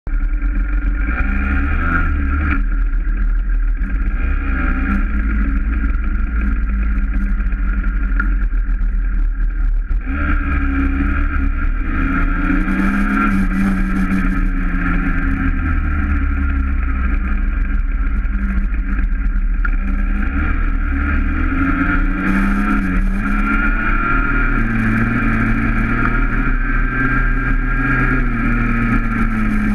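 Small two-stroke engine of a Yamaha PW mini dirt bike running under way, its pitch rising and falling as the throttle opens and closes, with wind buffeting the microphone.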